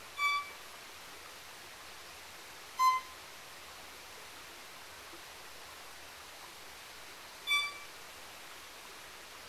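Violin playing three short single notes a few seconds apart, alternating a slightly higher and a slightly lower pitch, in imitation of a pygmy wren babbler's call. A steady soft hiss of forest ambience lies underneath.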